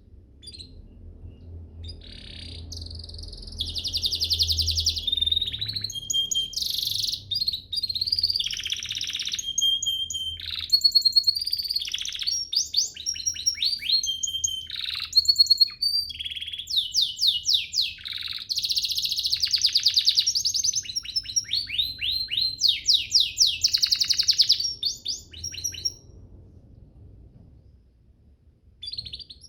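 Domestic canary singing a long, continuous song of fast trills and rapid repeated notes with short whistled notes between. It breaks off a few seconds before the end and starts up again right at the end.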